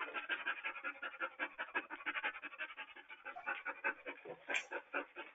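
A police K9 dog panting with quick, even breaths, several a second, close to a video-call microphone that makes the sound thin.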